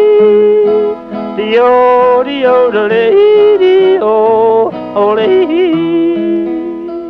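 Old-time country song recording: a singer yodeling without words over acoustic guitar, the voice leaping and breaking between pitches, then settling on a held note as the music fades near the end.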